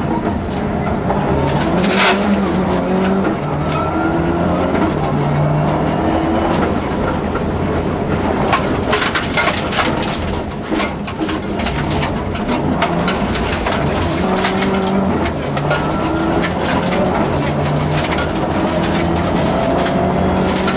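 Subaru Impreza rally car's flat-four engine at full stage pace, heard from inside the cabin: revs climb and drop in steps as the driver changes up and down through the gears. From about eight seconds in, stones from the gravel road clatter against the car.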